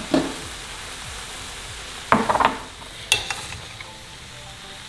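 Raw ground beef sizzling in a very hot Pyrex baking dish on a gas burner as it starts to release its juices. A metal spoon stirs and scrapes against the dish with a few sharp knocks: once at the start, then a cluster about two to three seconds in.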